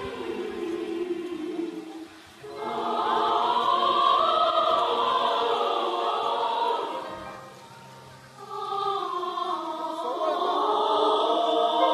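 A large choir singing in phrases, with short breaks between them about two seconds and eight seconds in; the phrase after the first break is the loudest.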